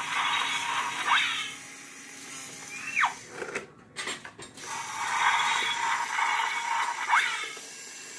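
Road Rippers toy recycling truck playing its electronic sound effects through a small speaker: a grinding, whirring machine noise that stops about a second in, then one falling tone, then the whirring starts again about halfway through and runs for a couple of seconds.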